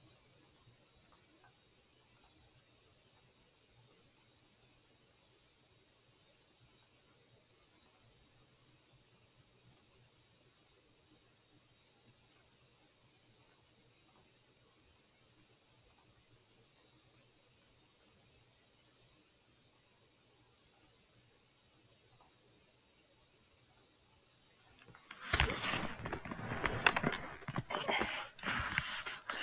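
Computer mouse clicking, single sharp clicks every second or two. Near the end comes a few seconds of much louder rough, rustling noise.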